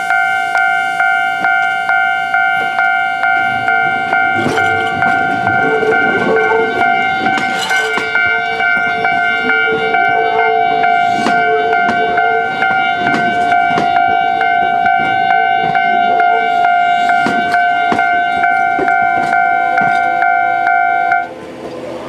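Japanese level-crossing warning bell ringing steadily at about two strokes a second while a Kintetsu 1437-series electric train rolls slowly over the crossing, its wheels clicking over the rail joints and points. The bell stops near the end as the crossing clears.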